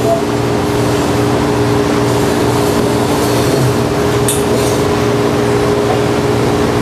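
Steady workshop machinery noise: a continuous hiss over a steady mechanical hum, unchanging throughout.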